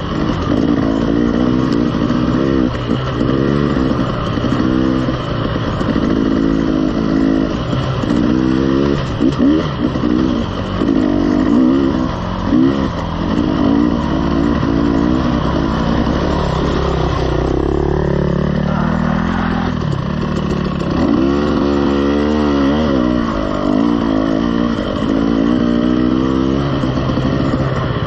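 KTM 300 two-stroke dirt bike engine pulling at low trail speed, the revs rising and falling in quick waves as the throttle is worked over rough, rocky ground.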